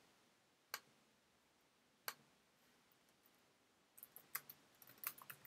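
Computer mouse clicks, once about a second in and again about two seconds in, then a quick run of keyboard keystrokes near the end, against near silence.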